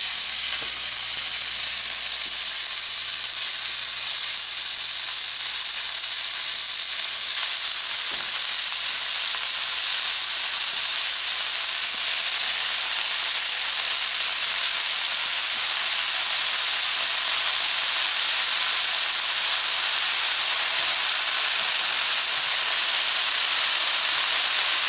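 Raw ground turkey sizzling in hot vegetable oil in a large stainless steel frying pan, a steady even hiss.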